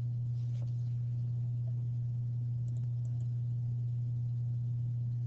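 Steady low hum in the background of a recording, with a few faint clicks about half a second in and again near the middle.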